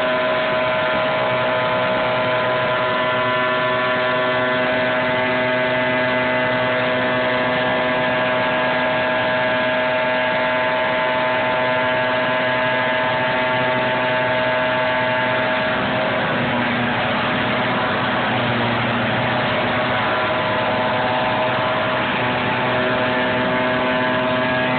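Engine-driven trailer-mounted leaf vacuum running steadily at full power, its engine and fan giving a loud, even whine. For several seconds past the middle the tone wavers and turns rougher before steadying again.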